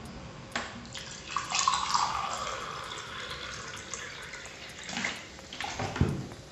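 Liquid poured into a small glass tumbler, a trickling pour of about two seconds starting a little over a second in, followed by a few sharp knocks near the end.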